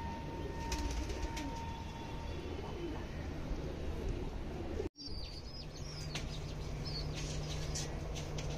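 Fantail pigeons cooing in low, wavering notes, with wings flapping. After a brief break about five seconds in, high short bird chirps come in over a steady low hum.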